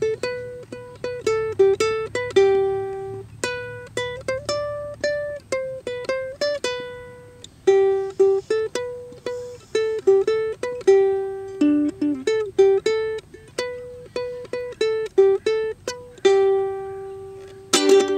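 Instrumental music: a plucked string instrument like a ukulele picking out a melody one note at a time, each note fading, with a few strummed chords near the end.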